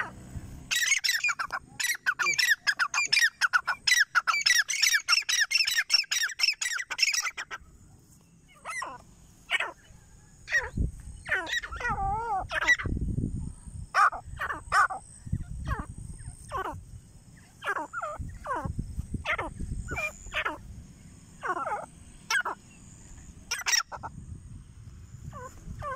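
Grey francolins calling: a fast run of loud, shrill repeated notes for several seconds, then scattered single calls, some wavering up and down in pitch, over a low rumbling noise.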